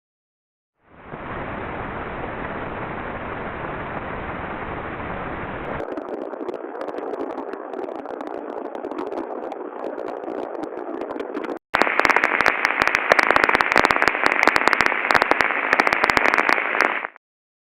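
Industrial ultrasound recordings, converted down to the audible range by an ultrasonic detector: a steady hiss, then a thinner hiss with scattered clicks, then after a brief break a louder, dense crackle that stops suddenly.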